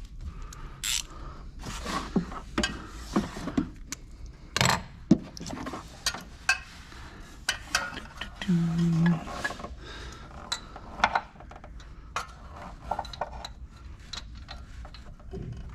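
Hand tools and metal parts clinking and knocking in an irregular string of sharp clicks, with a brief low hum about halfway through.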